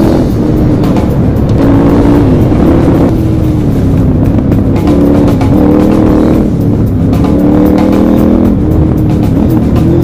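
KTM 1190 Adventure R's V-twin engine running under way on a gravel road, its pitch rising and falling several times as the throttle opens and closes. Wind and tyre noise run underneath.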